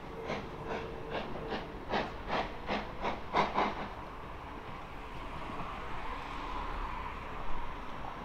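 Steam locomotive pulling away, with a regular beat of about two and a half strokes a second that peaks around three and a half seconds in. The beat then fades into a steady hiss.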